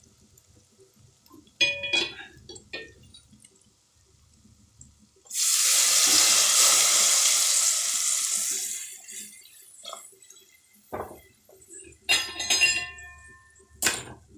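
Hot water poured into a pot of hot oil with fried onions and spices: a sudden loud rush and sizzle that begins about five seconds in and fades after about three seconds. Metal pots and utensils clink before and after.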